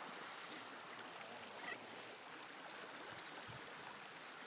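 Faint, steady rush of a small trout stream's flowing water, with one small tick a little under two seconds in.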